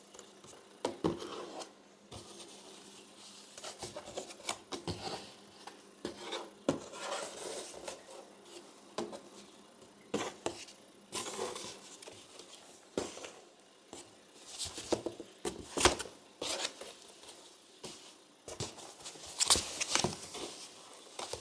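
A cat scratching and scrabbling at a long box as it plays: irregular scrapes, rustles and light knocks, coming in short spurts that grow louder near the end.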